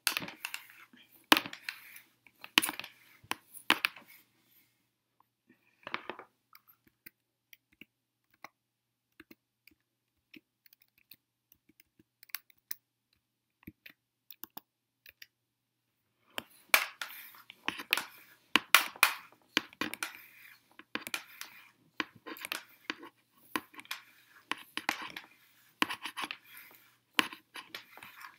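Rustling and clicking of hair being combed and pressed with a flat iron: scratchy rustles as the iron clamps and slides down the hair, with a quiet stretch of several seconds in the middle.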